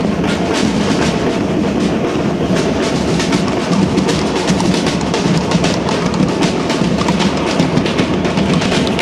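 Batucada drum ensemble playing live: large bass drums and snare drums struck with sticks in a steady, dense rhythm.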